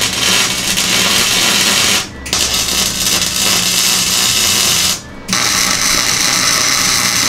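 Welding arc crackling in three runs of two to two and a half seconds each, with brief breaks between them, as a steel strip is welded overhead into the open end of a steel tube frame support.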